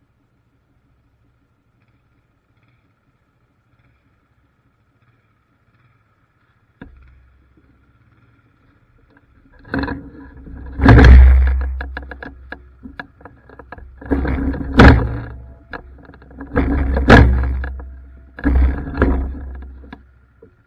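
Yamaha ATV's single-cylinder four-stroke engine starting about seven seconds in and running low, then revved hard several times, each rev rising sharply and dying away over about a second.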